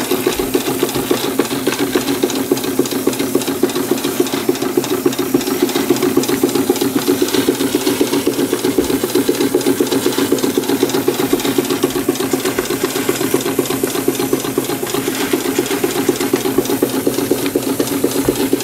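Märklin 4147/11 live-steam ship's engine running at speed, a rapid, even beat of exhaust steam with hiss over it, as it drives a dynamo.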